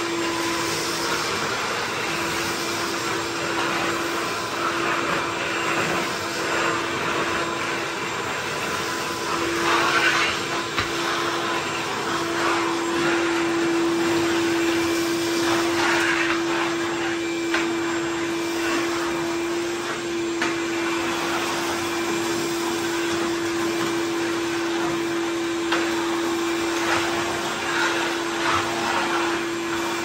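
Ridgid 16-gallon wet/dry shop vacuum running, a steady motor whine over the rush of air through its hose as it sucks dry leaves and debris off the garage floor. A few brief louder rushes come and go, about three times.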